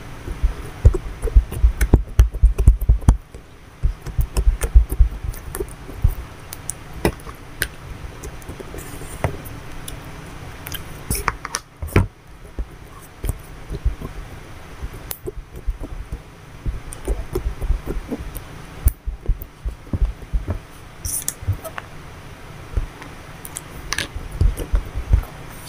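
Slime being squished, stretched and poked by hand on a hard tabletop: sticky clicks and pops with soft low thumps, heaviest in the first few seconds and then sparser. The thumps carry strongly because the clip-on microphone lies on the same table.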